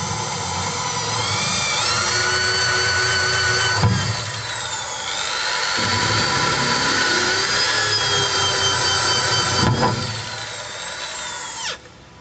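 Electric drill with a hole saw cutting a hole through a fibreglass (FRP) water tank panel: the motor whines steadily, its pitch sagging and recovering as the saw bites. Near the end it is switched off and winds down.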